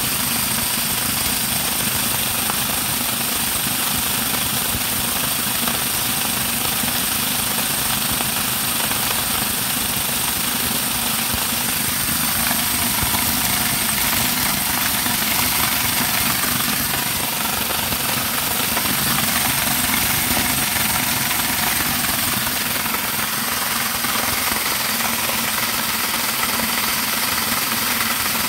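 Homemade motor-driven corn grinder running steadily under load, grinding dried corn and grain into grits with a constant mechanical whir and rattle.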